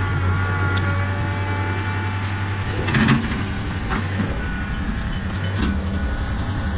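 John Deere 3025E compact tractor's three-cylinder diesel engine running steadily under work, with a few sharp cracks and knocks on top, the loudest about three seconds in.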